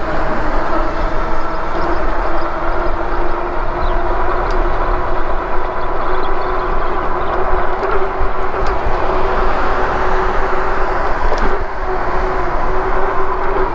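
Lectric e-bike under way: wind rushing over the chest-mounted camera's microphone and tyre noise, with a steady whine from the rear hub motor holding one pitch at a constant speed.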